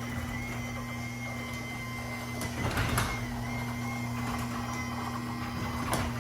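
Chamberlain garage door opener motor running steadily with a thin whine, driving the door upward while the up-arrow button is held in travel-limit programming mode. A few clicks about three seconds in and again near the end.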